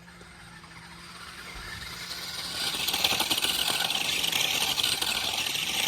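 Radio-controlled monster truck spinning donuts on dirt: its motor and spinning tyres throwing dirt build up from about a second in and run hard and loud from about three seconds.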